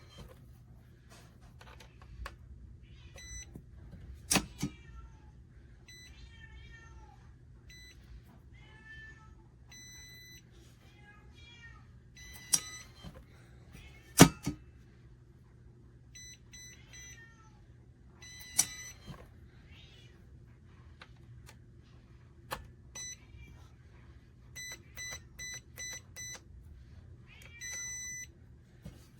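Short electronic beeps from the biometric pistol safe's keypad, mixed with several sharp clicks, over a steady low hum. A cat meows repeatedly, most often in the first third.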